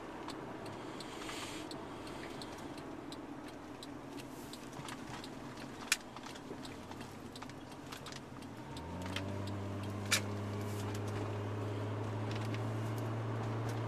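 Car engine and road noise heard from inside the cabin while driving. A little under nine seconds in, the engine note rises and settles into a louder, steady drone as the car accelerates. A couple of sharp clicks come in between.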